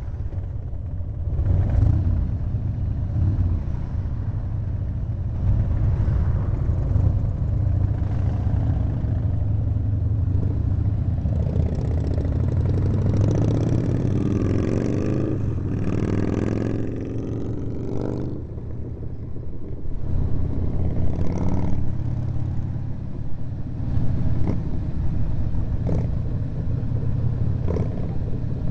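Harley-Davidson V-twin motorcycle engine running steadily at road speed, heard from the bike being ridden, with surrounding traffic. Between about 12 and 18 seconds in, the engine pitch rises and falls as revs change.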